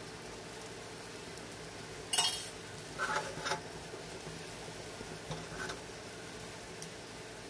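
A few sharp clinks of metal kitchenware against a pan or dish: the loudest about two seconds in, a small cluster about a second later, and two fainter ones near five and a half seconds, over a steady low hiss.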